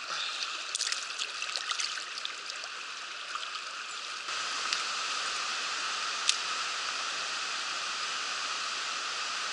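Mountain stream water rushing steadily. A scatter of small clicks and splashes comes in the first couple of seconds, the rushing gets a little louder about four seconds in, and there is one sharp click about six seconds in.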